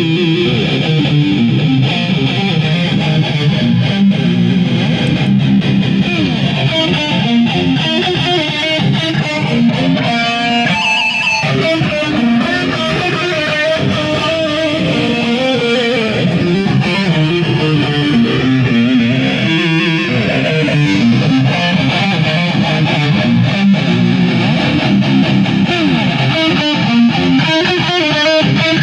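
Distorted electric guitar played without a break through a Marshall JCM 2000 DSL amp driven by a Maxon OD-9 overdrive pedal, in a heavy metal style.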